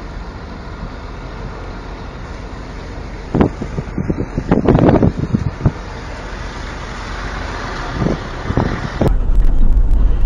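Road and engine noise of a moving car heard from inside, with a cluster of louder bursts of noise in the middle. About nine seconds in it switches abruptly to a louder, deeper rumble.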